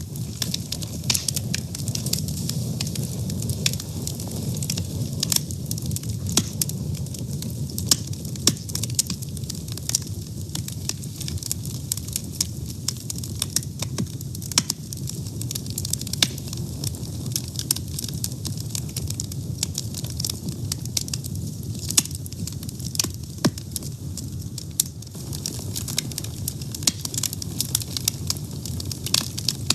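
Wood fire burning, with a steady low rush of flames and frequent sharp, irregular crackles and pops.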